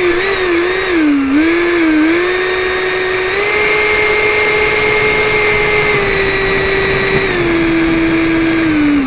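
Electric ducted fan of a 70 mm RC F-18 jet whining at high throttle over a rushing hiss. The pitch wavers in the first two seconds, steps up a little about three seconds in, drops a step about seven seconds in and starts to fall right at the end as the throttle comes back.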